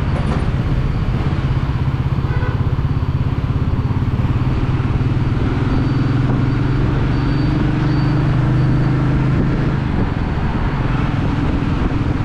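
Royal Enfield Meteor 350's single-cylinder engine and exhaust running steadily at a cruise, its note firming a little around the middle, over road and wind noise.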